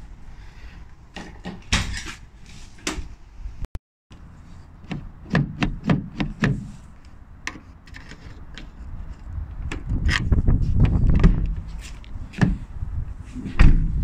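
Vauxhall Vivaro van's rear door and lock being handled: a run of separate clicks and knocks from the latch and door panel, with a stretch of low rumble about ten seconds in.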